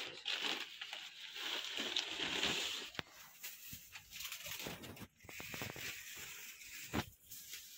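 Plastic wrapping crinkling and rustling as a packet of offerings is handled, with a sharp click about three seconds in and a knock near the end.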